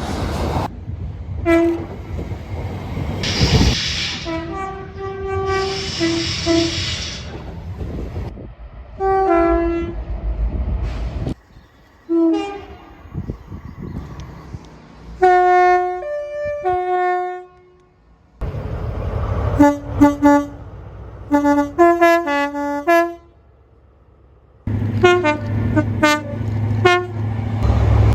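A rapid series of separately recorded British train horn soundings cut one after another. Each is a short two-tone horn stepping between a higher and a lower note, some heard over diesel engine and rail rumble.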